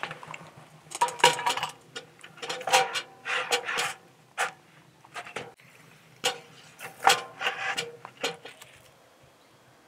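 Firewood logs being pushed into a G-Stove camping wood stove, knocking and scraping against the steel firebox and door in a series of short metallic clanks with a brief ring after each.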